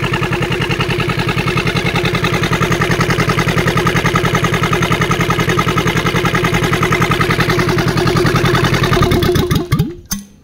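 Kubota Z482 two-cylinder diesel engine running with a steady, even beat, then shut off near the end, its pitch falling as it winds down and stops. It is stopped after only a short run because the engine holds too little coolant.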